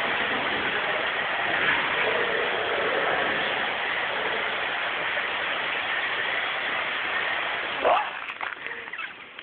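Steady rushing noise of running water, like a waterfall. It cuts off abruptly about eight seconds in with a short, louder scrape.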